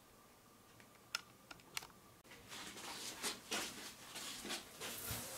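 A few light clicks, then a quick, irregular run of scratchy rustles from about two seconds in: a cat stirring and stretching on a cardboard sheet, its paws and fur scraping the cardboard.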